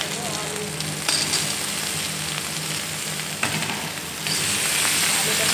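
Diced eggplant and potato sizzling as they fry in oil in a steel kadai, while a slotted metal spatula stirs and scrapes against the pan with a couple of sharp clinks. The sizzling grows louder about four seconds in.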